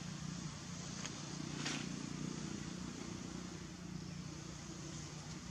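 Steady low hum under outdoor background noise, with a faint short rustle about a second and a half in and a faint high chirp just before it.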